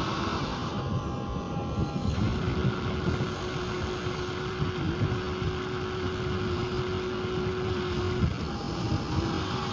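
Radio-controlled model vehicle's small electric motor and gearbox whining at a steady pitch, with a rough rumble underneath. The whine drops out briefly about a second in and again near the end.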